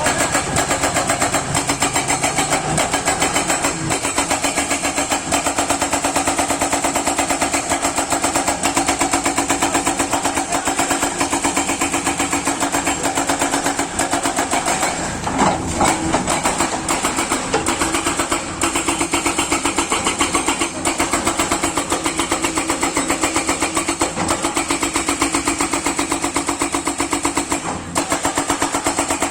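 Kato hydraulic excavator's diesel engine running steadily, with a fast even pulse and a brief louder moment about halfway through.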